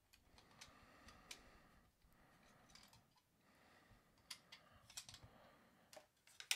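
Faint, irregular small clicks and taps of a 1/64 scale diecast car being worked off its plastic display base, with a sharper click near the end.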